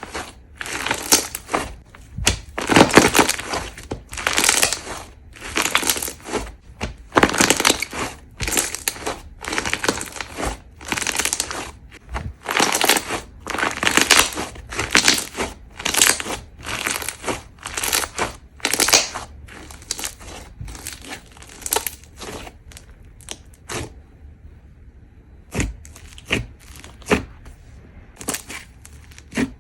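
Crunchy slime squeezed and pressed by hand, crackling in repeated crunches about once a second. Later the crunches turn shorter and quicker, and after a brief pause a few sharp crackles follow near the end.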